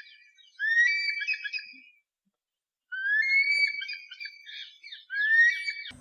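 Eagle calling: three long, high calls, each sliding up briefly and then held.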